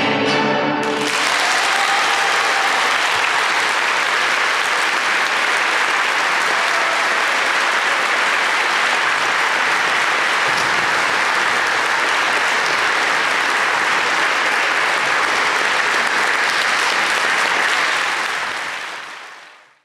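A folk orchestra's last notes die away about a second in, followed by an audience applauding steadily; the applause fades out near the end.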